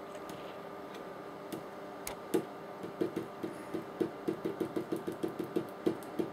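A run of short, light taps: a few scattered ones, then from about three seconds in a quick, even series of about four a second.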